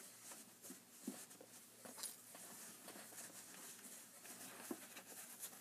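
Near silence with a few faint, short ticks from pins being pulled out and pushed back into the weaving.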